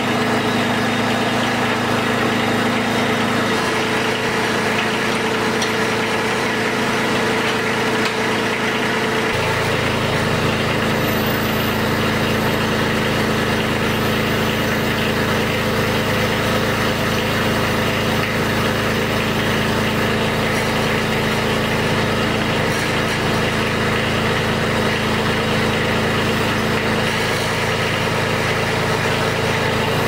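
Kubota compact tractor's diesel engine running steadily while the front loader's hydraulics raise and work the quick-attach pallet forks. About nine seconds in the engine note deepens and stays heavier.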